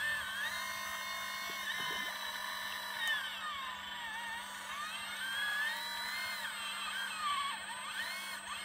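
Radio-controlled scale hydraulic excavator's motor and hydraulic pump whining, the pitch sliding up and down over and over as the boom and bucket work under changing load, over a steady low hum.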